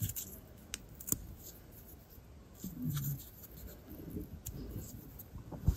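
Faint rustling and tearing of cardboard being ripped into small pieces by hand, with a few small sharp clicks, the loudest near the end.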